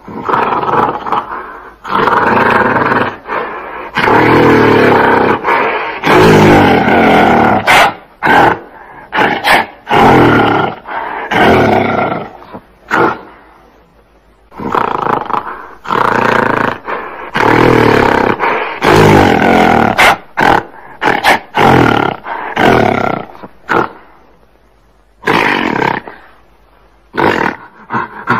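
Gorilla roaring in loud calls a few seconds long, with runs of short sharp bursts between them and a couple of brief pauses.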